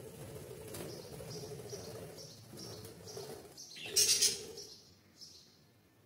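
Budgerigars chirping in short, evenly repeated high calls, about two or three a second, with a louder sharp burst about four seconds in, over a steady low hum.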